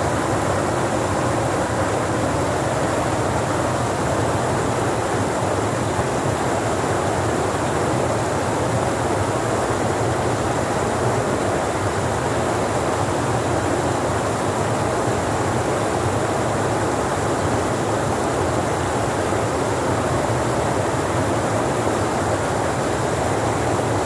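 Small waterfall spilling over rock ledges into a churning pool: a steady, even rush of falling water.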